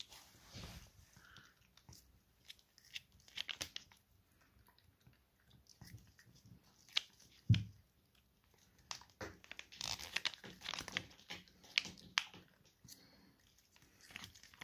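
A cat eating jelly wet food from a foil Whiskas pouch held to its mouth: irregular wet licking and chewing clicks, with crinkling of the pouch. One louder bump comes about halfway through.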